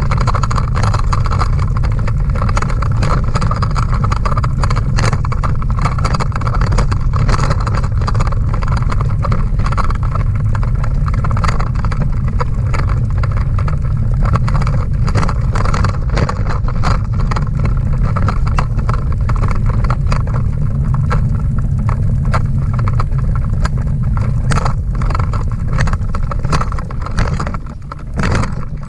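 Schwinn bicycle dog trailer rolling over pavement, heard from inside: a loud, steady low rumble of the wheels and frame with frequent rattles and knocks from bumps in the road.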